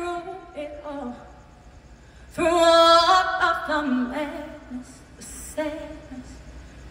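A woman singing solo phrases with little or no instrumental backing, amplified through a PA. She holds wavering notes with short pauses between phrases, and the loudest phrase comes about halfway through.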